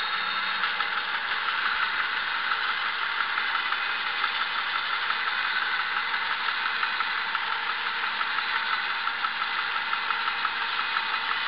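Engine of a homemade bandsaw mill running steadily with a regular pulsing beat, the saw not yet cutting into the log.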